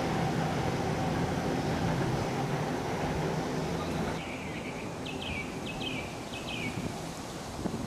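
Steady low rumble and hum of an approaching electric tram, which drops away abruptly about four seconds in. A bird then gives several short falling chirps.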